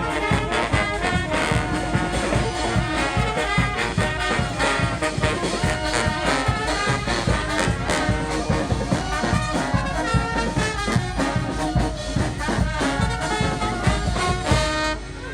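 Brass marching band playing, trombones and trumpets over a steady drum beat, stopping right at the end.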